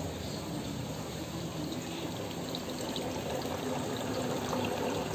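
Jebo 180 protein skimmer running, with water pouring and bubbling steadily and small splashes from about two seconds in.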